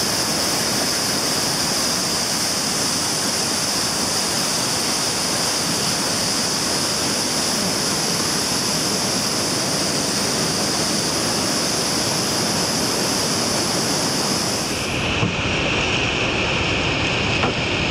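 Whitewater rapids pouring down a steep bedrock slide: a steady, loud rush of water, its tone changing abruptly about 15 seconds in.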